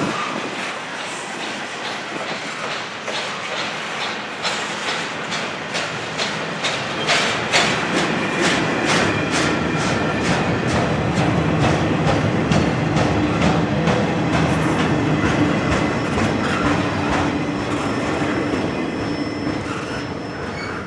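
Freight cars of a long auto rack and intermodal container train rolling past, wheels clicking over rail joints in a quick even rhythm that is strongest through the middle, over a steady rumble. A thin high tone creeps in near the end.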